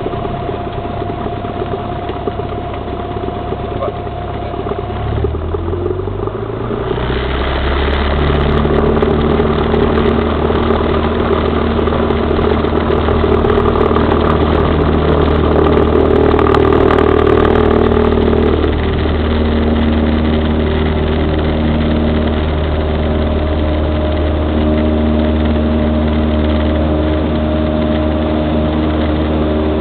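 Cessna 172's piston engine and propeller, heard from inside the cockpit, running at low power and then throttled up about five seconds in, the pitch rising, before holding a steady, louder drone as the aircraft rolls along the runway.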